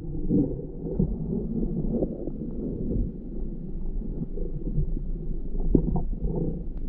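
Muffled underwater rumble of water and movement heard through a camera's waterproof housing as a spearfisher swims, with scattered small knocks and one stronger knock near the end.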